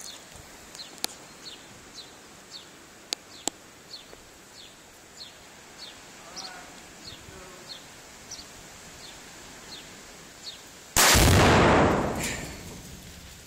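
A rifle shot setting off an exploding target: one very loud blast about eleven seconds in, so loud that it clips, dying away over about a second and a half.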